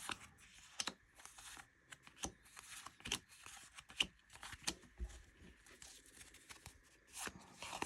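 Baseball trading cards being handled and flipped through one by one, making soft, irregular short clicks and slides.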